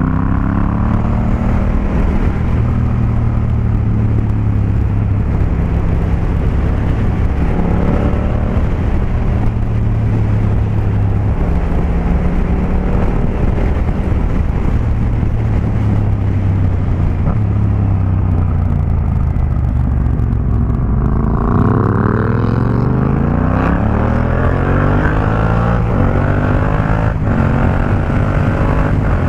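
A 2016 Yamaha MT-07's parallel-twin engine through an Akrapovic 2-into-1 carbon exhaust, heard from the rider's seat while cruising. In the last third the engine note climbs steadily as the bike accelerates hard.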